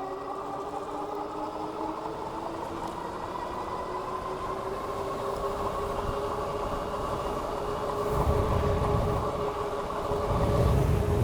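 Whine of the Philodo H8 AWD ebike's dual hub motors under way, its pitch rising slowly as the bike picks up speed. Wind buffets the microphone in two loud gusts in the second half.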